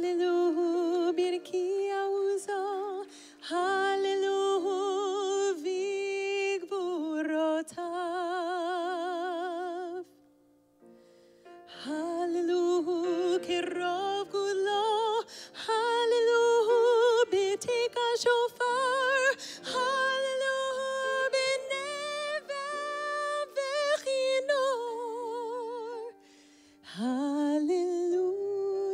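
A woman singing with a saxophone alongside, in long held notes with vibrato. The music breaks off briefly about ten seconds in and again near the end.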